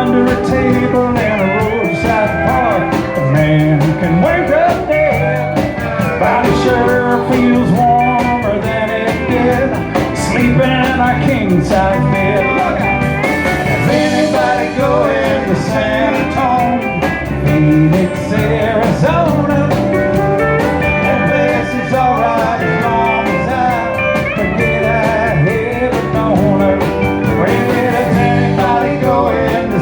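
Live country band playing a song, amplified, with a steady drum beat under guitar.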